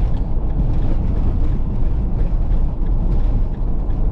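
Steady low rumble of road and engine noise inside a motorhome's cab while it drives along at speed.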